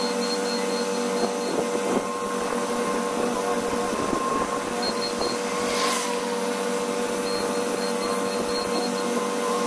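Bobcat T66 skid-steer loader's diesel engine running at a steady speed with a constant whine over the drone, and one short knock about six seconds in.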